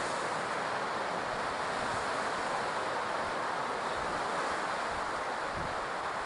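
Ocean surf washing on the shore as a steady, even rush, with no separate wave breaks standing out.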